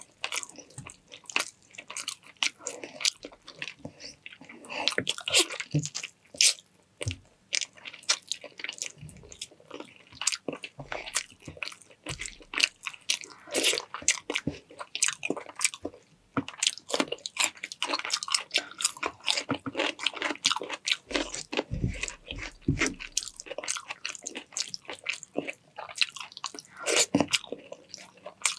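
Close-up eating sounds: wet chewing and crunching with frequent clicks of mouth and utensils, a mouthful of chicken bistek Tagalog with rice and pickles.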